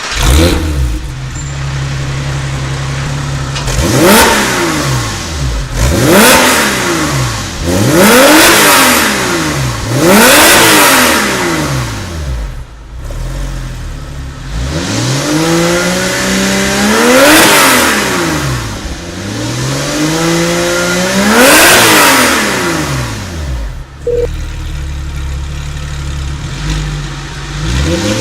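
Porsche 996 flat-six through an iPE aftermarket performance exhaust, idling and then revved: four quick throttle blips, then two longer, slower climbs in revs, each falling back to idle.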